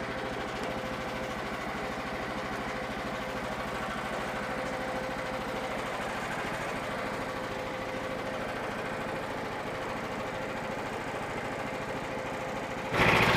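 An engine running steadily at constant speed with an even pulse. Just before the end it gives way abruptly to a much louder engine sound.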